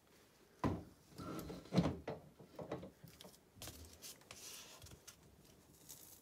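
Dull clunks and a scrape as a partly assembled Fiat 126 BIS engine block is handled and tilted on a cardboard-covered bench. There are a few knocks, the loudest about two seconds in, then a softer rubbing scrape.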